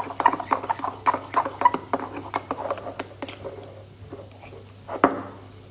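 Metal fork stirring a thick blue cheese sauce in a ceramic bowl: rapid, irregular clinks and scrapes of the fork against the bowl for about three seconds, then thinning out, with one louder knock near the end.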